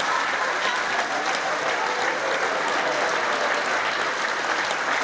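Theatre audience applauding, a dense, steady clapping that holds at the same level throughout.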